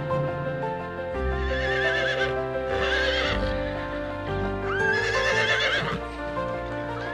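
Horse whinnying, two wavering whinnies about two seconds apart, over steady background music.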